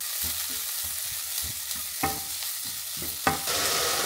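Chopped onions, peppers and courgette sizzling in a non-stick frying pan while a wooden spoon stirs and scrapes them, with a couple of sharper scrapes about two and three seconds in. The sizzle grows louder near the end.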